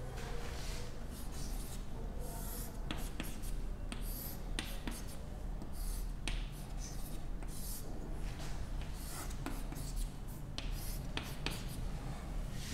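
Chalk drawing on a chalkboard: a run of short scratching strokes with sharp taps as the lines of a diagram go on.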